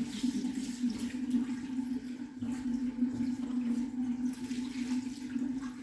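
Water running steadily from a kitchen tap, with a steady low hum under it, as tomatoes are rinsed.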